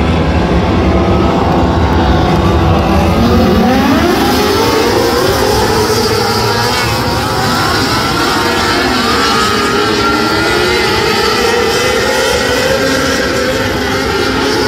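A pack of 600cc micro sprint cars with motorcycle engines. About three to four seconds in the engines rise in pitch together as the field accelerates, then run at high revs with several engines overlapping.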